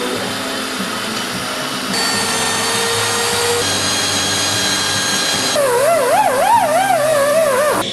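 Power tools working a steel frame in quick succession: a cordless drill, then a die grinder's steady whine from about two seconds in, then a small air die grinder with a sanding disc whose pitch wavers rapidly up and down as it is pressed onto the steel, cutting off near the end.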